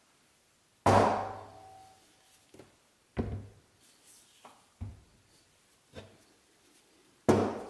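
Heavy steel lathe chucks being set down and shifted on a workbench: a loud thud with a short metallic ring about a second in, several lighter knocks, and another loud thud near the end.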